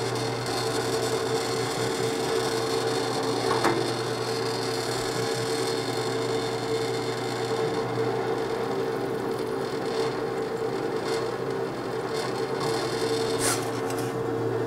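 Drill press motor running steadily as a number 20 twist drill bores holes in an aluminum block, with a brief click about three and a half seconds in and again near the end.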